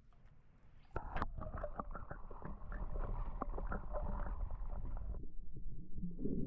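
Water splashing and gurgling with scattered sharp knocks, starting about a second in: a caught mulloway being put back in the water over the side of the boat.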